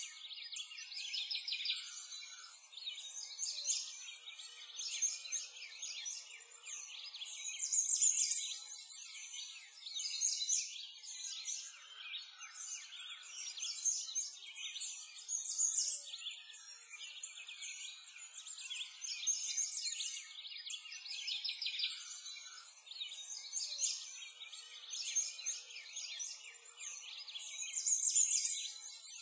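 A chorus of many small songbirds chirping and trilling without a break, all high-pitched, with nothing low underneath.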